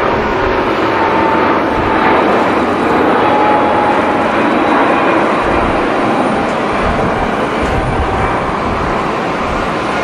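Boeing 777 airliner's twin jet engines at takeoff thrust as it lifts off and climbs away: a loud, steady rushing noise with a faint whine that sinks slightly in pitch. Low rumbling grows stronger from about halfway in.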